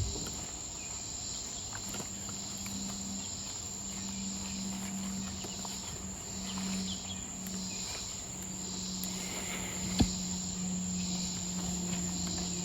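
Outdoor insect chorus: a steady high trill with a swamp cicada's buzzing song swelling and fading over it. A low steady buzz comes in about two seconds in, and there is a single sharp click about ten seconds in.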